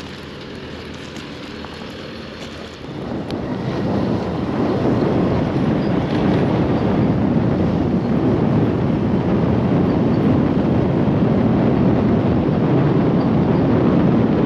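A steady rushing noise, growing much louder about three seconds in and then holding steady.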